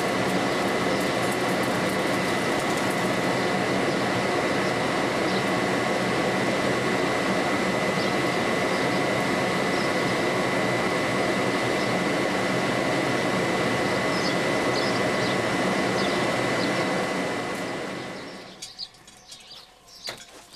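Electric forge blower running steadily with a thin high whine, forcing air through a glowing coal forge fire. It dies away near the end, leaving a few faint high clicks and chirps.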